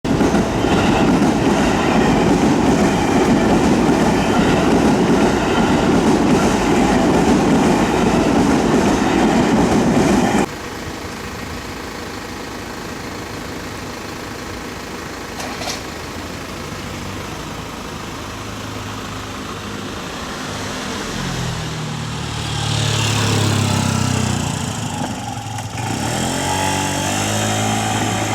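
A Seibu Kokubunji Line train running over a level crossing, a loud steady rumble that cuts off abruptly about ten seconds in. After that comes quieter street noise, with a vehicle engine rising in pitch a little past twenty seconds in.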